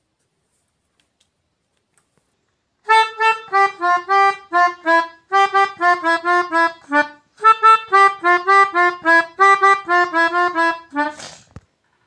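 A melodica picked out as a simple tune of short single notes, starting about three seconds in and breaking off twice briefly. A short burst of noise comes at the end.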